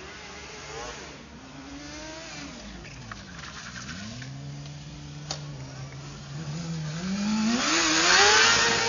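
Sport motorcycle engine revving: its pitch dips and rises, holds steady for a few seconds, then climbs as the bike accelerates past close by, loudest near the end.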